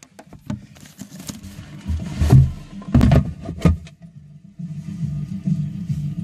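Irregular knocks and plastic rattles of the paper shredder's housing being handled, the loudest about two and a half to four seconds in. About four and a half seconds in, a steady low pulsing begins.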